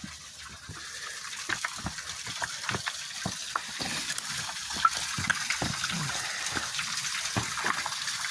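Small waterfall running with spring meltwater, splashing and gushing over rocks, getting louder over the first few seconds.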